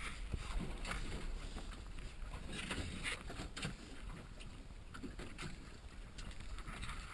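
Wind and water noise around a small aluminium boat on the open sea, with a steady low rumble on the microphone and scattered short knocks and clicks on the deck.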